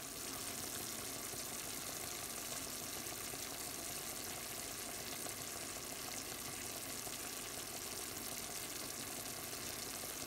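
Pieces of squirrel meat sizzling steadily as they cook in a frying pan in their own juices.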